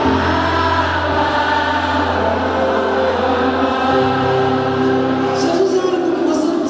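Live gospel choir and band holding long sustained chords over a bass line, with a few short bright hits near the end.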